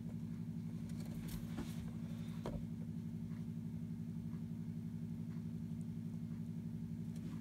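A steady low mechanical or electrical hum with a slight regular pulse, with a few faint ticks in the first few seconds.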